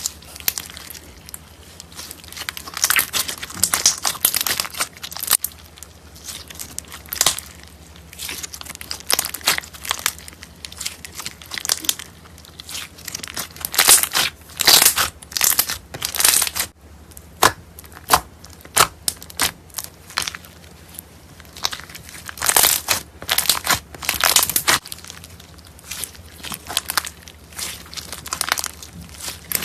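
Clear slime packed with jelly cubes being squeezed, pressed and stretched by hand. It gives irregular bursts of sticky, crackly squelching with short pauses between squeezes.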